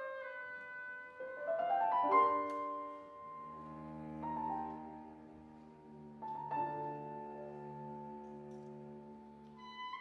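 Chamber ensemble music: piano chords, with a quick rising run about two seconds in, over long held notes from the winds and strings.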